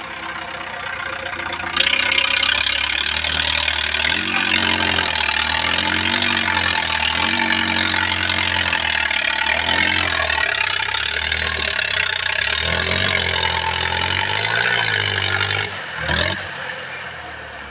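Mahindra 585 tractor's diesel engine being revved hard, its pitch sweeping up and down again and again. It comes in loudly about two seconds in and falls back near the end.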